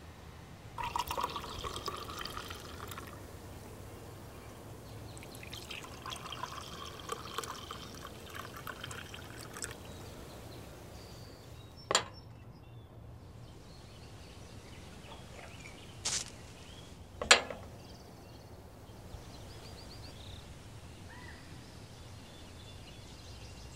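Liquid being poured in two spells, the second longer, then three sharp clicks: one about halfway through and two close together a few seconds later.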